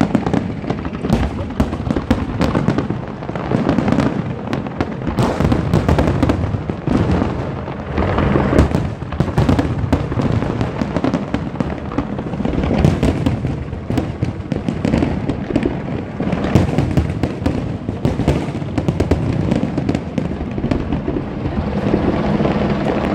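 Large fireworks display: a dense, continuous run of bangs and crackling from aerial fireworks.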